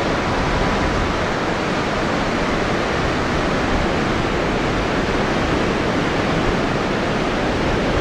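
Heavy Pacific surf breaking along a sandy beach: a loud, steady wash of crashing waves.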